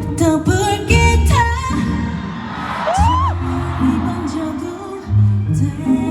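Live pop music from a concert: a band with pulsing bass notes and a singing voice, and an audience cheering in the mix, with a rising whoop about three seconds in.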